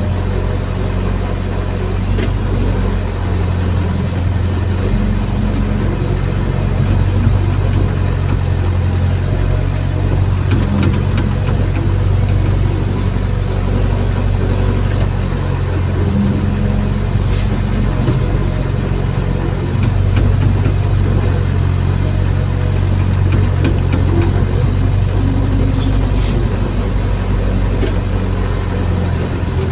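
Hydraulic excavator's diesel engine running steadily, heard from inside the operator's cab while the boom and bucket dig, its note shifting a little at times.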